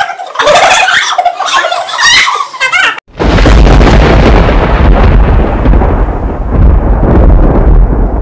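Girls squealing and shrieking with laughter, then after a sudden break about three seconds in, a loud deep rumbling boom that runs on for several seconds and cuts off abruptly near the end.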